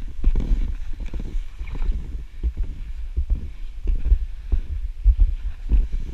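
Wind buffeting a body-worn action camera's microphone as it slides fast downhill over snow: an uneven low rumble broken by many short knocks and thuds from bumps in the snow.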